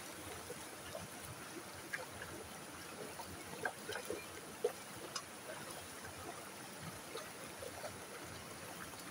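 Creek water trickling over rocks, a steady low rush, with a few short sharp sounds about four seconds in.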